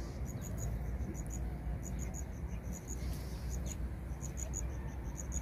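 High-pitched chirping repeating in quick groups of two to four, from small field animals such as crickets or birds, over a low steady rumble of wind on the microphone.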